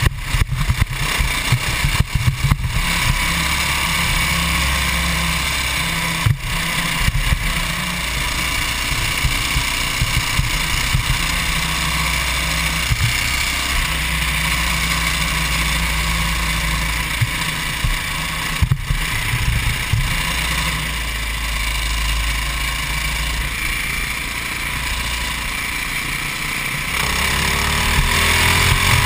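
Modified 24 hp, 196cc GX200-type single-cylinder four-stroke kart engine running hard through the corners of a lap. Its note dips for a while and then climbs again near the end as the kart accelerates.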